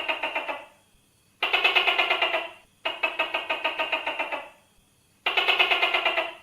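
Gecko calling: four bursts of rapid, evenly pulsed chattering, about ten pulses a second, each burst lasting a second or so, with short silent gaps between them.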